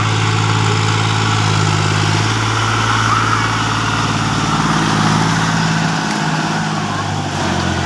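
John Deere 5050D tractor's three-cylinder diesel engine running steadily under load as the tractor drives through paddy-field mud and climbs the bank out of the field.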